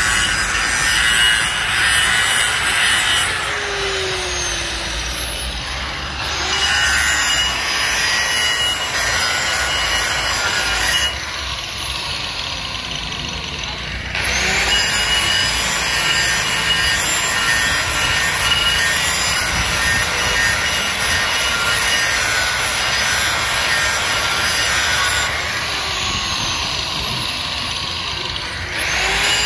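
DCA angle grinder with an abrasive disc grinding the inside of a cast-iron brake drum, skimming the braking surface by hand. The harsh steady grinding eases off three times for a few seconds as the disc comes off the metal, then bites again.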